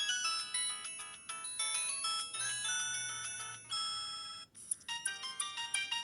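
Samsung C3011 mobile phone playing its built-in polyphonic ringtone melodies through its loudspeaker. One tune breaks off about four and a half seconds in and a different one starts.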